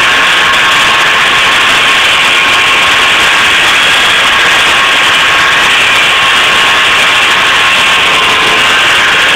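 Snowmobile running at a steady cruising speed, its engine and track making a loud, unchanging noise with no rise or fall in pitch.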